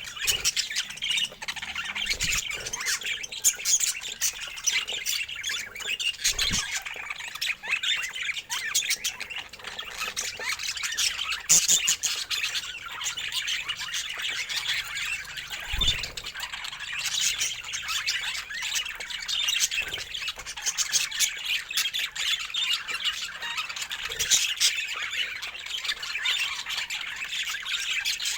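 Budgerigars chattering and squawking continuously in dense, overlapping chirps, with a few low thumps.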